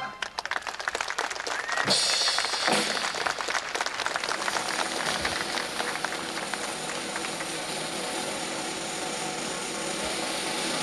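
Audience applause after a song ends: dense clapping in the first few seconds, with a brief whistle about two seconds in, then thinning into a steady patter.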